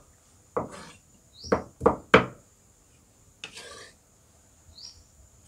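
Cleaver chopping garlic on a thick round wooden chopping board: four sharp knocks in the first two and a half seconds, then a short scrape as the chopped garlic is gathered up with the flat of the blade.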